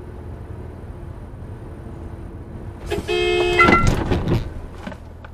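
Car horn sounding once for under a second, about three seconds in, over steady road and engine noise inside a moving car. A few loud knocks follow right after it.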